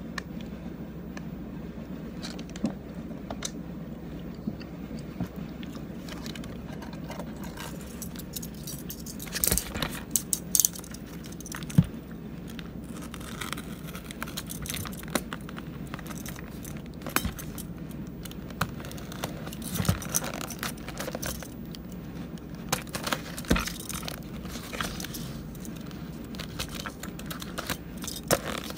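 Scattered clicks, taps and scrapes of food being handled: a skewer poked and stirred in a plastic cup of street food, plastic wrapping rustled, and a paper bag handled near the end. A steady low hum runs underneath.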